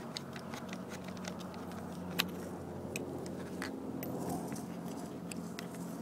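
Fingers turning the chrome bezel nut off the remote mirror-control knob on a 1969 Mustang Grande's door panel: scattered small metallic clicks and scrapes, with one sharper click about two seconds in. A steady low hum runs underneath.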